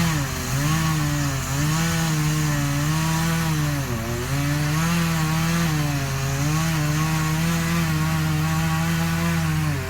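Chainsaw running at high speed while cutting wood, its engine pitch sagging briefly every couple of seconds as the chain bites and then recovering.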